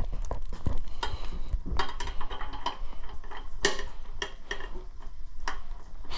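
Metal hand tools clinking and clicking irregularly, a socket and wrench being handled and fitted to a bolt, with one louder clank about three and a half seconds in.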